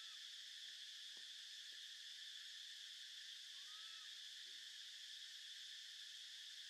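Faint, steady high-pitched insect chorus droning without a break, with one short soft chirp about four seconds in.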